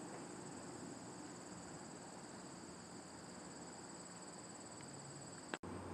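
Crickets trilling steadily and faintly in a high even band, over a faint low hum, with a brief dropout near the end.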